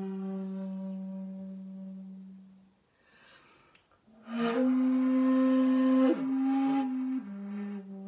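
Shakuhachi playing a classical honkyoku phrase. A long, low held note fades away, then after a pause of about a second and a half a new phrase enters a little past the middle on a higher held note, bends in pitch, and steps down to a lower note near the end.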